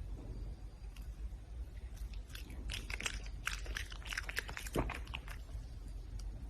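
Red panda chewing and crunching its food: a run of quick crisp crunches, thickest from about two and a half seconds in until about five and a half, over a low steady hum.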